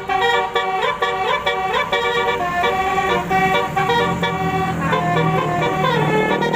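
Basuri telolet horn, a multi-note vehicle horn, playing a quick tune of changing pitched notes, with rising slides between notes in the first two seconds.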